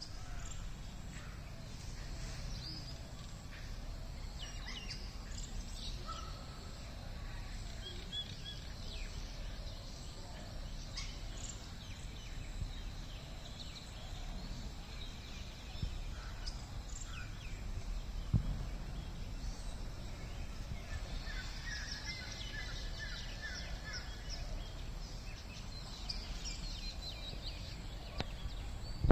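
Outdoor ambience: a steady low rumble with faint, scattered chirps of small birds, busiest about three-quarters of the way through. A single brief thump comes a little past halfway.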